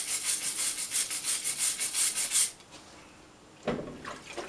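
Hand wire brush scrubbing a smear of mortar off real stone veneer in quick back-and-forth strokes, several a second. The brushing stops about two and a half seconds in, and a single thump follows about a second later.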